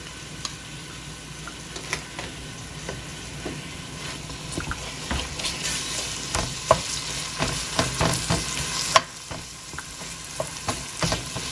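Sliced onions and tom yum paste frying in oil in a stainless steel pan: a steady sizzle with frequent taps and scrapes of a wooden spoon stirring against the pan, busiest and loudest through the middle.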